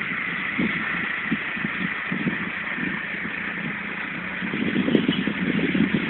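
A vehicle running: steady road and engine noise, with uneven low rumbles that grow louder near the end.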